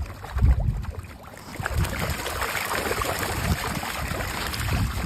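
Water splashing and trickling, with a few low thuds about half a second in.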